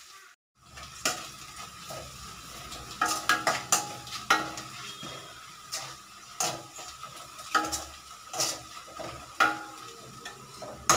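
Sliced onions frying in ghee and oil in a stainless steel kadai, sizzling steadily while a metal spoon stirs them, scraping and knocking against the pan about once a second; the onions are being sautéed until soft. The sound drops out briefly just after the start.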